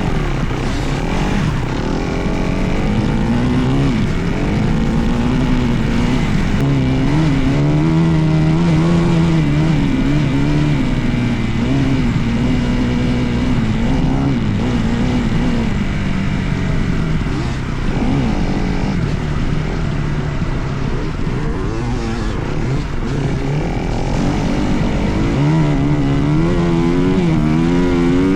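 Dirt bike engine running under way, its pitch rising and falling as the throttle is worked on and off.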